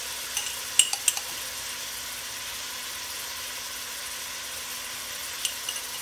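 Pork ribs and chopped onions sizzling steadily as they brown in an Instant Pot's stainless steel inner pot on its high setting. A metal spoon clicks lightly a few times about a second in and again near the end as garlic is added.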